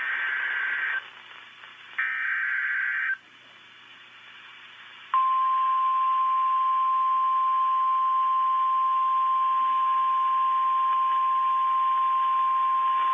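NOAA Weather Radio Emergency Alert System signal. Two bursts of SAME header data tones, about a second each and two seconds apart, are followed by a pause. About five seconds in, the steady 1050 Hz weather radio warning alarm tone starts and holds, announcing a severe thunderstorm warning.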